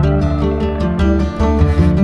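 Background music with plucked acoustic guitar notes.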